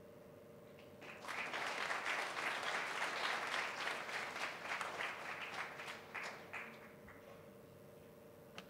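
Audience applauding. The clapping starts about a second in, swells, then thins to a few scattered claps and dies away about seven seconds in.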